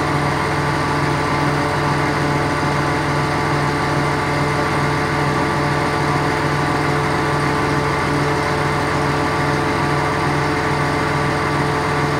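Engine of a truck-mounted cherry picker running steadily, a constant drone that holds one pitch throughout.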